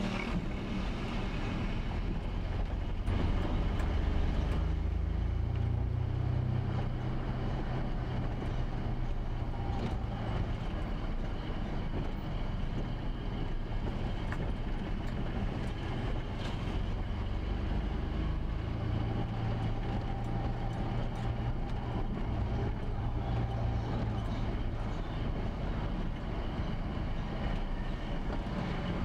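Engine and tyre noise of a car driving through town streets, a steady low rumble. The engine note climbs and holds twice, about four seconds in and again past the middle.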